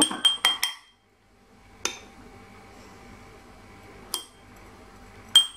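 Teaspoon clinking against a porcelain coffee cup, each tap ringing briefly: three quick taps at the start, then single taps about two seconds in, about four seconds in and near the end, as whipped coffee cream is knocked off the spoon into the cup.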